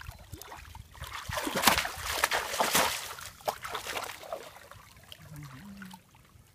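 Water splashing and sloshing as hands grope about inside a woven plunge-basket fish trap set in shallow muddy water, feeling for trapped fish. Irregular splashes are busiest in the first few seconds and die away near the end.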